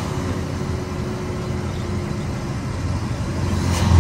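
Scania 113 truck's six-cylinder diesel engine running, heard from inside the cab, a steady low drone that grows louder near the end. The exhaust pipe has a large hole in it, which the driver says makes the truck noisy all day.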